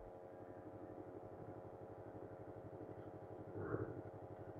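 Yamaha MT-25's 250 cc parallel-twin engine idling steadily, with a short louder sound about three and a half seconds in.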